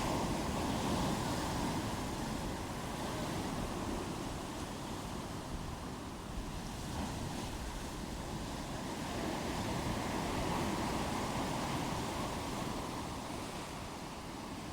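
Ocean waves breaking and washing on the shore in a continuous surf, swelling a little near the start and again about ten seconds in.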